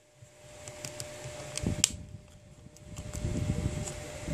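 A smartphone's frame being pried off with a pry tool: small clicks as its clips let go, one sharp click just under two seconds in, and low rubbing noise from the phone being handled.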